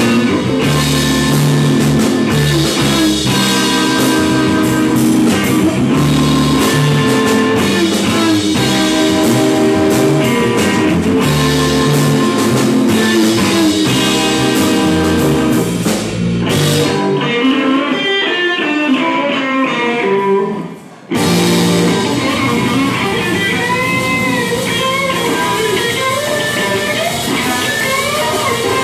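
Live blues band of electric guitar, electric bass and drum kit playing an instrumental passage. A little past halfway the bass and drums stop for about four seconds while the guitar plays alone, then the band comes back in under bent, wavering guitar notes.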